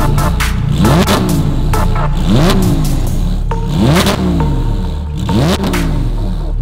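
Porsche 991.1 GT3's 3.8-litre flat-six, breathing through a titanium cat-back exhaust, revved at standstill in four sharp blips about a second and a half apart. Each blip rises quickly and falls straight back.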